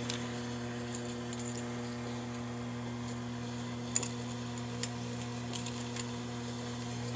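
Steady low hum with a few faint clicks, one about four seconds in and another just under five.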